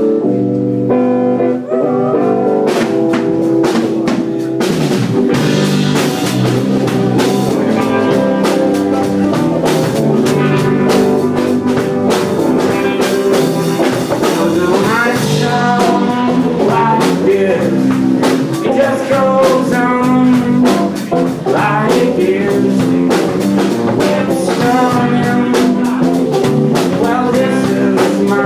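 Loud garage rock band playing: a drum kit keeping a steady beat under guitar, with a voice singing over it.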